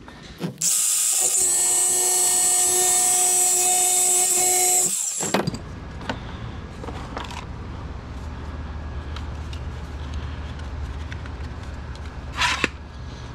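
Cordless angle grinder with a cutoff wheel cutting threaded rod: a loud, steady high whine for about four and a half seconds that stops suddenly. A low steady hum follows, with a brief scrape near the end.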